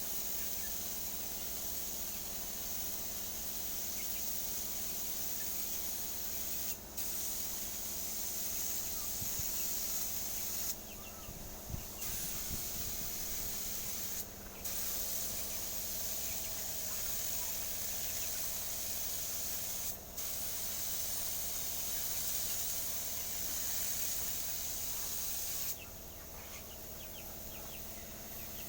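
Paint spraying: a steady hiss that stops briefly a few times and starts again, with a steady low hum underneath.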